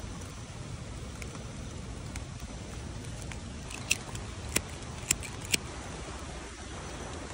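Steady rain falling on forest foliage, with a disposable gas lighter clicked four times in quick succession a little past the middle, failing to light in the wet.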